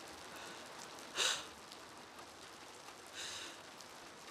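A distressed woman breathing: two short, breathy breaths about a second in and again two seconds later, over a low steady hiss.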